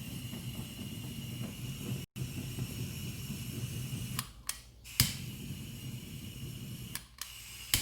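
Handheld kitchen blowtorch flame hissing steadily while it browns Swiss meringue. It drops out for a moment about two seconds in, with sharp clicks about five seconds in and again at the end.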